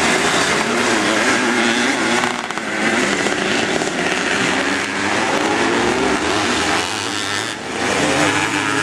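Several motocross bikes' engines revving on the dirt track, the pitch rising and falling with the throttle, with a short dip in loudness about two and a half seconds in and again near the end.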